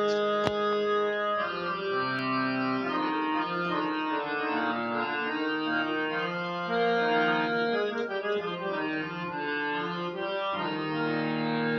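Portable electronic keyboard playing an instrumental melody of held notes over sustained chords, with a short click just after it begins.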